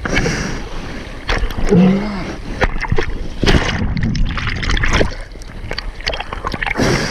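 Sea water splashing and sloshing close to the microphone in irregular bursts, with a brief human vocal sound about two seconds in.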